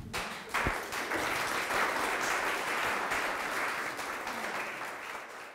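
Audience applauding: clapping starts about half a second in, holds steady, then thins out near the end.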